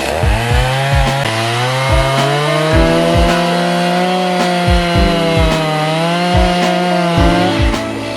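Gas chainsaw running and cutting wood, its pitch wavering up and down, mixed with background music that has a steady beat.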